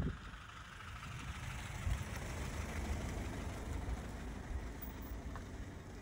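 Car driving along a mountain road, heard from inside the cabin: a steady low rumble of engine and road noise.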